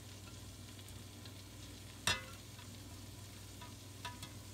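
Melted butter sizzling faintly in a stainless steel pan as pieces of corn on the cob are set into it, with one sharp clink of corn or hand against the pan about two seconds in and a few small clicks near the end.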